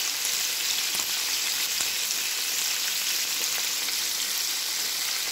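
Flour-coated chicken pieces deep-frying in hot oil in a wok: a steady sizzle with fine crackling.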